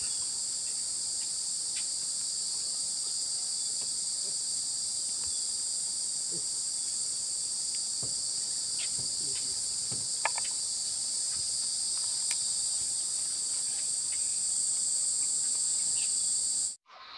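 Steady, high-pitched insect chorus, with a few faint clicks, cutting off suddenly near the end.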